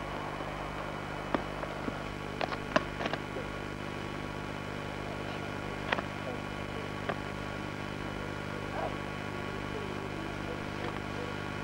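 Steady electrical hum and tape hiss of an old home camcorder's sound track, broken by a few sharp clicks, a cluster of them between about one and a half and three seconds in, then single ones around six and seven seconds.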